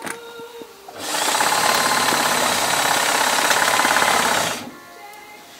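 FOX portable blind-stitch hemming machine running at a steady speed as it stitches a hem. It starts about a second in and stops about a second before the end.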